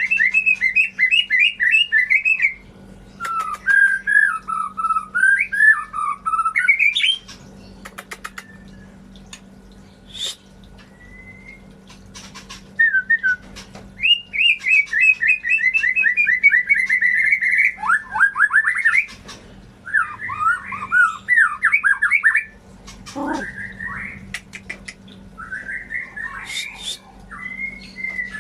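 White-rumped shama (murai batu) singing a varied song: bursts of fast repeated notes and slurred whistled glides, broken by short pauses with a few sharp clicks.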